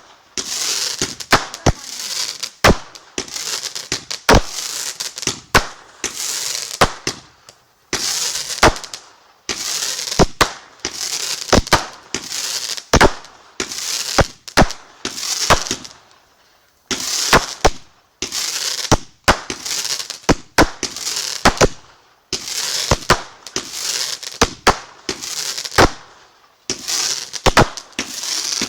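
Fireworks going off in quick succession: sharp bangs, each followed by a loud hissing crackle, about one a second, with brief lulls twice.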